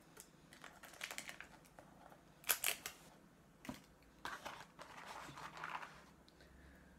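McDonald's paper and cardboard food packaging being handled, rustling and crinkling in short bursts, with the loudest crackle about two and a half seconds in.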